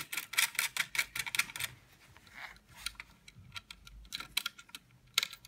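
Rapid light clicks and taps of small metal fastening hardware handled by hand while a replacement control board is secured in a diode laser machine's cabinet. The clicks come thick and fast for the first second and a half, then only now and then, with a few more near the end.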